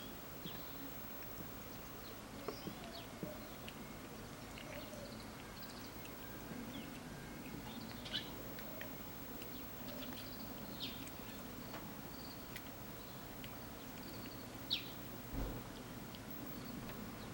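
Cat grooming after eating, licking its paw and washing its face: faint, irregular small licking clicks, with a few short high chirps.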